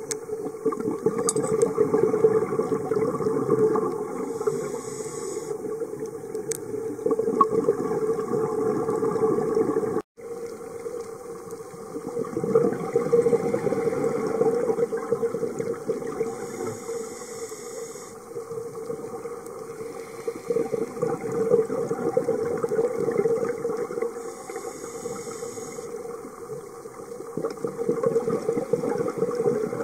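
Underwater sound of a scuba diver breathing through a regulator: exhaled bubbles rumble and bubble, with a hiss of inhalation every several seconds. The sound breaks off for an instant about ten seconds in.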